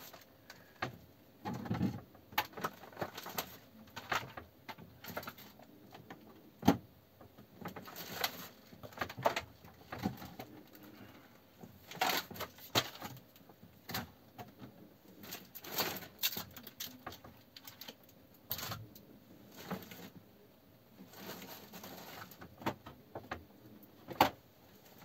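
Rummaging through a plastic bag: irregular rustling with scattered clicks and small knocks as items are handled. The sharpest knocks come about seven seconds in and again near the end.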